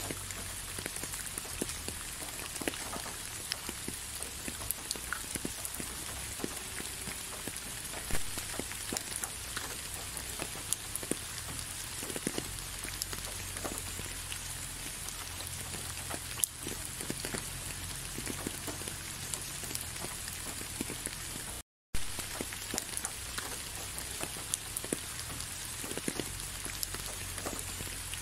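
Steady rainfall: an even hiss with many individual drops ticking close by, a few louder ones standing out. The sound cuts out for a split second about three-quarters of the way through.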